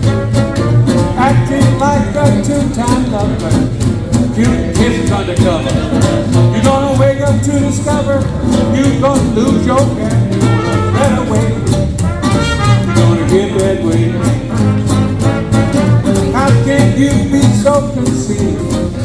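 A live hot-jazz swing band playing an instrumental stretch of an up-tempo tune, with a melodic lead over a steady, even beat from the rhythm section.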